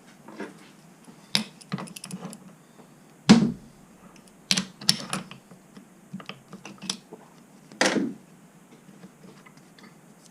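Irregular sharp metallic clicks and knocks as the quick-change toolpost and its new bush are handled and tried for fit on the lathe. The loudest knock comes about three seconds in, and another strong one comes near the end.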